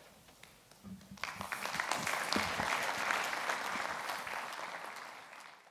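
Audience applauding: the clapping starts about a second in, swells quickly and fades away near the end.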